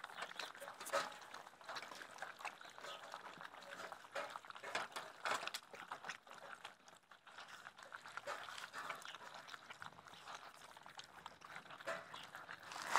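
German Shepherd puppies eating wet minced meat from stainless steel bowls: faint, irregular wet smacking and chewing with small clicks.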